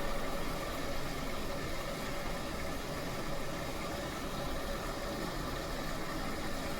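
LG Smart Inverter washing machine running with a steady whirring hum and hiss.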